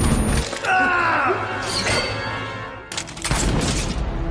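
Film gunfight sound effects over dramatic background music: a gunshot with glass shattering at the start, and another sharp shot about three seconds in.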